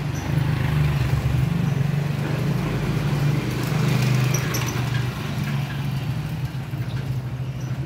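A motor vehicle's engine running close by at a steady low pitch, louder for the first four or five seconds and then easing off.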